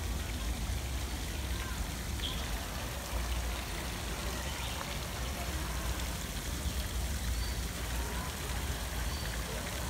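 Pond fountain jets splashing steadily into the water, a constant rain-like patter, over a low steady rumble.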